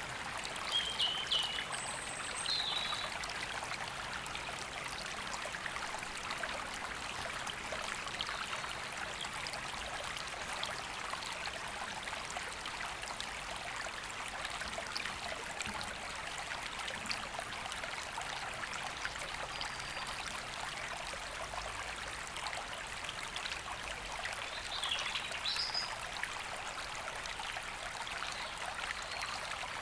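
A woodland river flowing steadily, with an even rushing and trickling of water. A few short bird chirps sound above it about a second in and again near the end.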